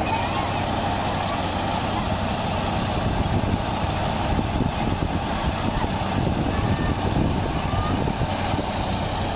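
Tractor-driven wheat thresher running steadily, the Fiat 480 tractor's diesel engine and the threshing drum making an even, unbroken mechanical noise.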